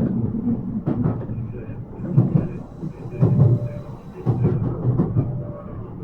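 Interior running noise of a Yokohama Minatomirai Railway Y000 series electric train in motion. The wheels rumble on the rails, swelling in knocks roughly once a second.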